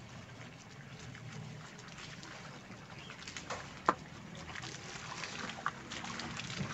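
Toyota Agya hatchback rolling slowly along a muddy, stony dirt track, its tyres splashing through puddles and crackling over loose stones. It grows slightly louder as it nears, with a sharp click about four seconds in.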